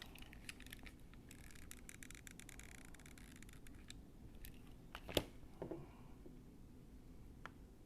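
Faint handling of small craft parts: a run of fine scratchy rustling and ticks, then a sharp tap a little after five seconds in, a softer knock just after it and a small tick near the end.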